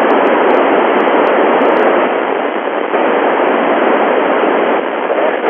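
Steady FM static from an Icom IC-9700 receiving the UVSQ-SAT CubeSat's amateur repeater downlink on 437 MHz. The hiss is heard with no station talking through the repeater at that moment.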